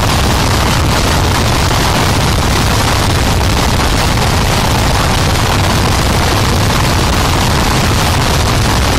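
Harsh noise wall: a loud, dense, unchanging wall of distorted static filling the whole range from deep rumble to high hiss, with no rhythm, tone or variation.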